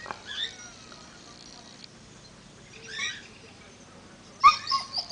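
Dog whining at a gate in short high-pitched whimpers: once about half a second in, again around three seconds, then a louder run of whimpers near the end. It is whining to be let back into the yard.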